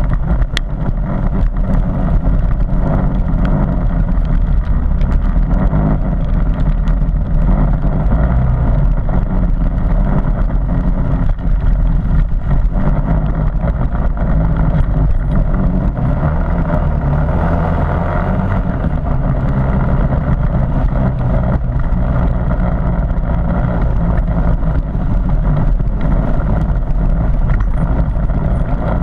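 Harley-Davidson MT350's single-cylinder four-stroke engine running steadily while the motorcycle is ridden along a muddy green lane. The engine note grows stronger for a few seconds about halfway through.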